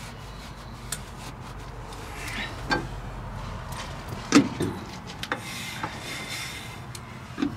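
Scattered metal clicks and knocks from working on a drum brake fitted with new shoes, with a few brief scrapes. The loudest knock comes about halfway through.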